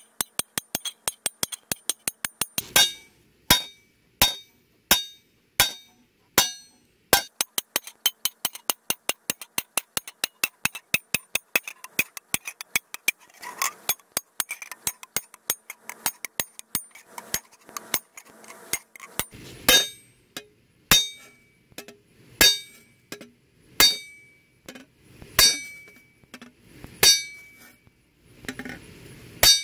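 Ball-peen hammer peening a steel saw-blade cymbal on a steel block. Fast light taps, several a second, fill the first half; after that come heavier blows about a second and a half apart, each leaving the blade ringing with a high metallic tone.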